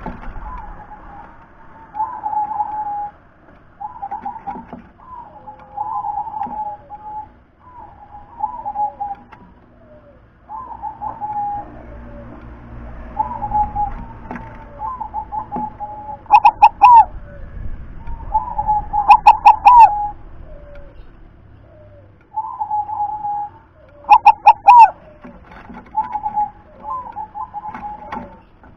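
Zebra dove (perkutut) cooing: a string of short rolling coo phrases repeated every second or two, with three much louder phrases in the second half.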